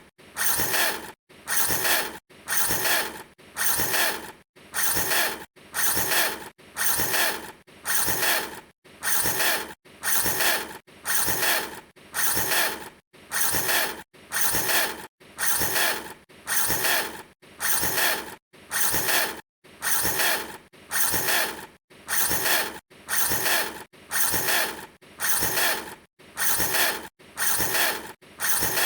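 A short rasping mechanical noise repeated about once a second, each burst stopping sharply with a near-silent gap before the next.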